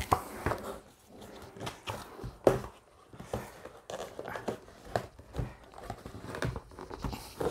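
Cardboard graphics-card box being handled and opened: irregular knocks, taps and scuffs of cardboard, several a second.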